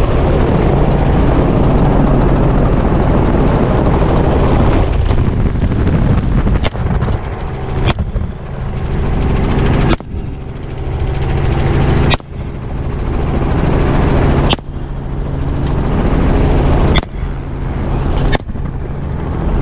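Helicopter running steadily, with seven rifle shots fired at a running hog starting about seven seconds in, spaced roughly one to two and a half seconds apart. The helicopter noise dips briefly after each shot.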